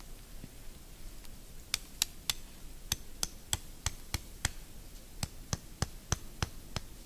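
A run of sharp knocks, about three a second, starting a couple of seconds in: a tarp stake being driven into the ground with repeated strikes.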